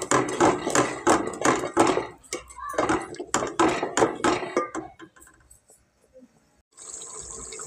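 Metal spoon stirring yogurt into masala in a cooking pot, scraping and clinking against the pot in quick repeated strokes that stop about five seconds in. A faint steady hiss comes in near the end.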